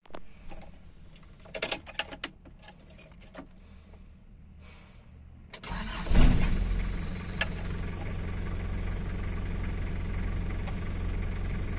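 A few clicks, then about five and a half seconds in the 1993 Daihatsu Taft F70's diesel engine cranks, catches within about a second and settles into a steady idle.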